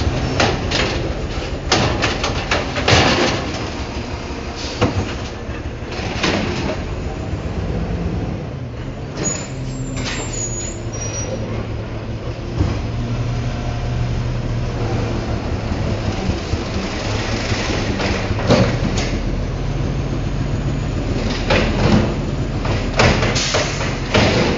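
Freightliner Condor automated side-loader refuse truck (Amrep Octo arm) running steadily while its hydraulic arm works, with bursts of knocks and clatter as a wheeled cart is tipped and shaken out over the hopper at the start and again near the end.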